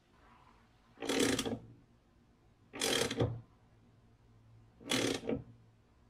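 Hand ratchet clicking on a lawn mower's blade bolt in three short strokes about two seconds apart, as the bolt is run in to hold a new blade.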